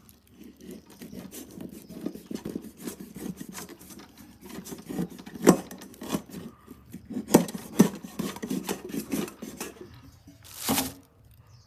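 Cleaver sawing back and forth through hard, dry cured pork on an upturned stainless steel bowl: quick rasping strokes, with sharper clicks where the blade meets the steel, the loudest around the middle. A short louder rustle comes near the end.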